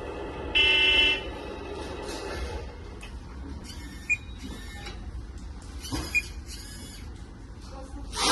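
A 1:14 hydraulic RC bulldozer model gives a half-second electronic horn-like beep about half a second in. A quiet steady mechanical hum follows, broken by two short high beeps.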